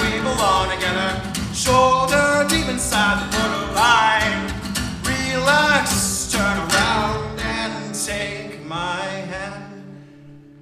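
Acoustic guitar strummed under a male voice singing long, gliding held notes; the song ends on a last chord left ringing and fading away about nine seconds in.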